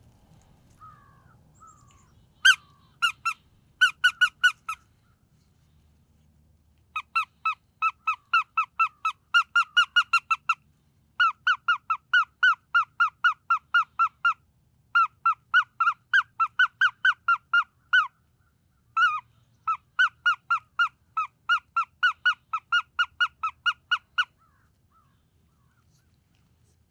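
A predator call blown as high-pitched squeals, imitating a prey animal in distress to draw in a coyote. The squeals come quickly, about four or five a second, in several runs of a few seconds each with short pauses between, and stop about three seconds before the end.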